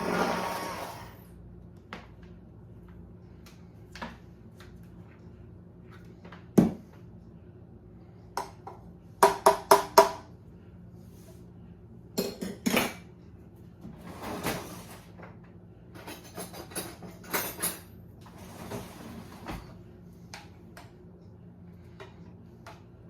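A hand-held immersion blender's motor winds down and stops about a second in. Then come scattered clinks, knocks and short clatters of kitchen dishes and utensils, with a loud single knock and several quick runs of rattling.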